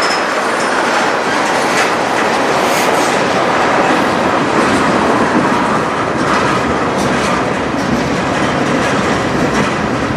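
Freight cars of a CN manifest train rolling past, with steady rumbling and wheels clicking over the rail joints.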